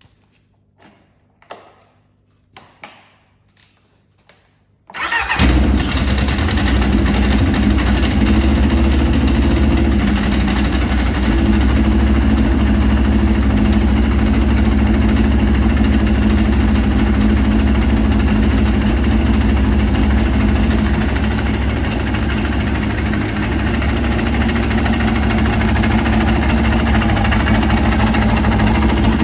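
A few light knocks, then about five seconds in a Yamaha RX1's 1000cc four-stroke, four-cylinder carbureted engine starts suddenly and idles steadily. It is the first run after an oil change, before the oil level is checked.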